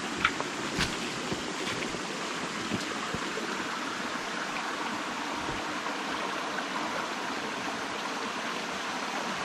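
Shallow, rocky creek running steadily over stones, with a few sharp clicks in the first three seconds.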